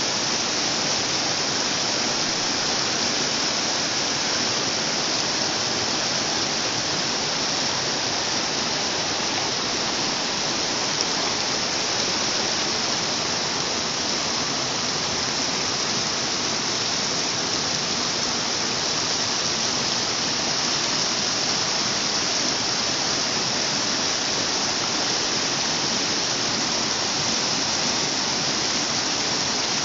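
Water rushing and churning over rocks and branches in a narrow inflow channel: a steady, even rush with no breaks.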